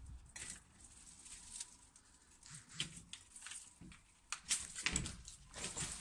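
Irregular footsteps and scuffing with clothing and handling rustle as someone steps in through a doorway and onto a wooden staircase; the loudest scrapes come near the end.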